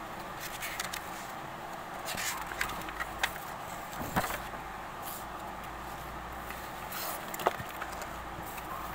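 A sheet of paper being handled and shifted about, with scattered light rustles, clicks and knocks over a steady background hiss; the sharpest click comes late.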